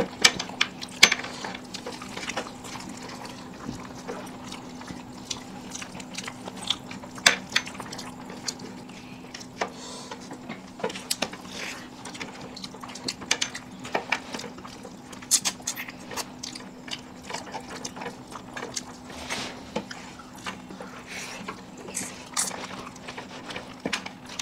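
People eating mutton biryani and curry: wet chewing and lip-smacking, with many short sharp clicks scattered throughout, over a steady low hum.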